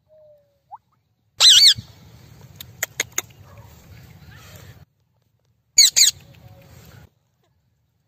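Rose-ringed parakeets screeching: two loud, wavering calls, one about a second and a half in and another about six seconds in. A few sharp clicks fall between them, and a short soft whistle comes at the start.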